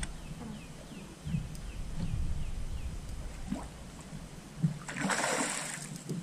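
A hooked bass splashing at the surface right beside the boat as it is landed by hand: a loud burst of splashing about five seconds in, after a few seconds of lighter water sounds.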